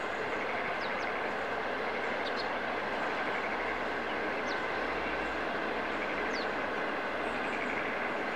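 Passenger train coaches rolling steadily across a railway viaduct: a continuous rolling rumble from the wheels, with a faint high-pitched whine above it. A few short high chirps are scattered through it.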